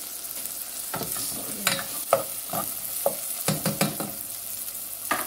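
Chopped onion, garlic and ginger sizzling in oil in a metal saucepan. A utensil stirs them, scraping and knocking against the pan several times between about one and four seconds in, with one more knock near the end.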